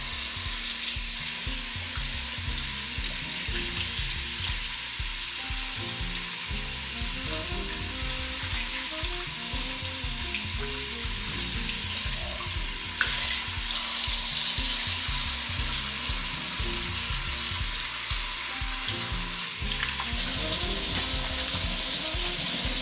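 Kitchen tap running steadily into a sink as a whole raw chicken is rinsed under it, over background music with a changing bass line.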